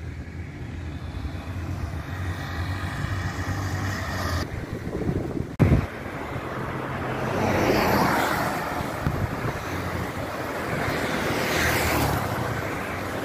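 Road traffic: a steady low engine hum, broken by an abrupt cut with a sharp thump about five and a half seconds in, then rushes of passing cars that swell and fade, the nearest one toward the end.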